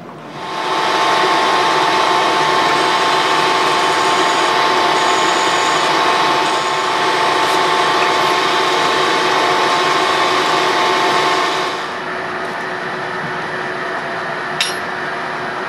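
Twist drill spinning in a machine drill chuck, drilling a tap-drill hole for a 1/4-20 thread into a metal bracket: a steady whirring cutting noise with a hum in it, starting about half a second in and dropping to a quieter steady run about twelve seconds in, with a single click near the end.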